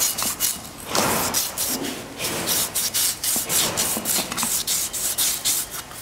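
Sandpaper rubbed by hand in quick back-and-forth strokes over the braking surface inside a Maruti Suzuki Wagon R's cast-iron rear brake drum, scouring it clean during a wheel service.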